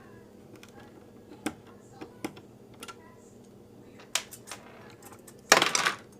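Scattered small clicks and taps of computer hardware and screws being handled. Near the end comes a loud clatter about half a second long as a part slips from a hand and drops.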